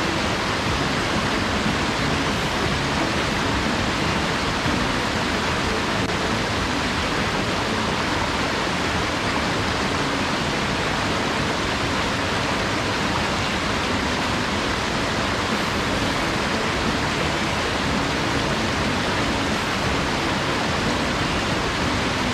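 Mountain headwater stream rushing over rocks and small cascades: a steady, even rush of water with no break or change.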